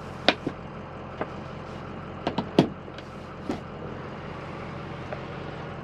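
Plastic sun visor clicking and knocking as it is swung out and its auxiliary visor handled: a quick run of sharp clicks in the first few seconds, then one faint click later. Under it, the steady low hum of the 6.0L Power Stroke V8 diesel idling, heard from inside the cabin.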